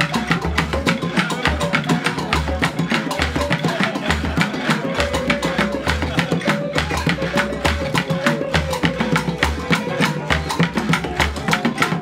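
West African percussion ensemble playing a steady groove: a large calabash turned upside down in a tub and struck with sticks, gourd rattles and a cajon box drum. Quick sharp clicking strokes run over deep thuds that fall about twice a second.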